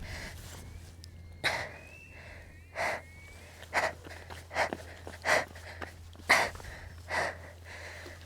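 A person breathing hard in short, sharp breaths, about seven in a row, a little under one a second, over a steady low hum.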